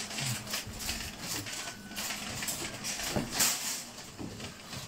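Metal shopping trolley rattling and clacking as it is handled and pushed, in irregular knocks, over supermarket background noise.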